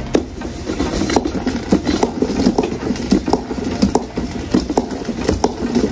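Spin mop being pumped: the plastic spinner basket whirring and rattling as the handle is pushed up and down, spinning the mop head to wring it out, with a sharp click about twice a second at each stroke.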